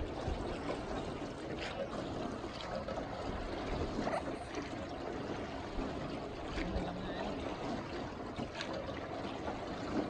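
Water washing and dripping around a small rowboat as it is rowed along a river, with a few light splashes and knocks.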